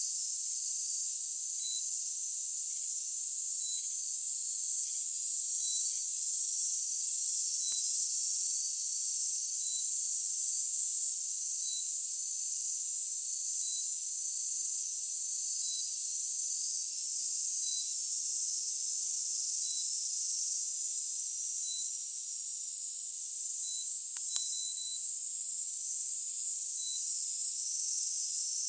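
A steady high-pitched hiss, with a short electronic beep repeating about every two seconds.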